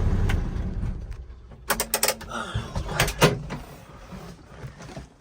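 A low rumble that fades out within about the first second, then a few scattered sharp knocks and clicks, the loudest about three seconds in.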